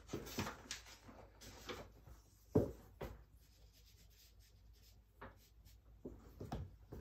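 Charcoal scraping and rubbing on drawing paper in short, irregular strokes, with a dull thump about two and a half seconds in.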